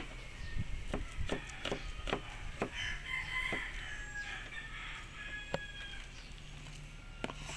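Kitchen knife chopping ripe mango on a plastic cutting board: a string of sharp knocks, several in the first few seconds and a few more later. A rooster crows in the background from about three seconds in.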